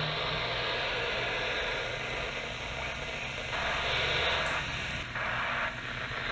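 FM static hiss from a Wouxun KG-UV6D handheld radio's speaker, the open-squelch noise of a weak or absent satellite downlink while listening for AO-85. The hiss grows louder for about two seconds past the middle, then eases back.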